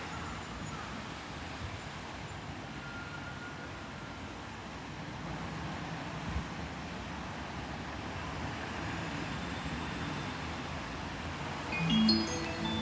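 Steady rumble and hiss of railway station platform noise. Near the end a short run of rising electronic chime notes begins: the lead-in to a platform announcement of an approaching train.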